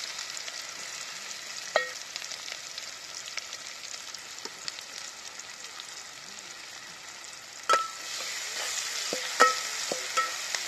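Chopped onion and garlic sizzling in hot oil in a metal pot. A metal spatula stirs and strikes the pot with ringing clinks, once about two seconds in and several times near the end, and the sizzle grows louder once the stirring starts.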